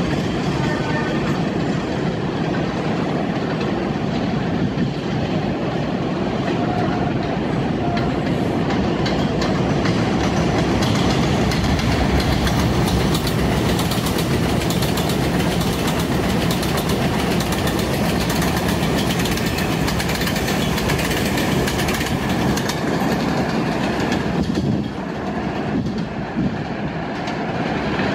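New York City Subway R62A train running along the track with a steady rumble, easing off slightly near the end.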